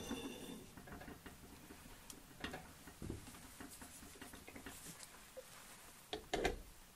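Faint handling noises on a Singer 201-2 sewing machine: a brief metallic ring at the start, then scattered light clicks and taps. About six seconds in come a couple of louder knocks as the cast-iron machine head is handled and set back down in its treadle cabinet.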